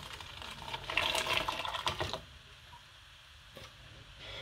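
Thick blended pepper and tomato purée pouring from a blender jug into an aluminium pot, loudest for about the first two seconds, then much quieter.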